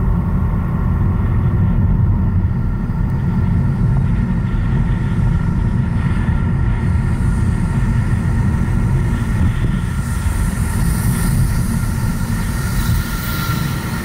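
A car driving along a street, heard from an action camera mounted outside on the bonnet: a steady, heavy low rumble of the moving car and air over the microphone, with a high hiss building in the last few seconds.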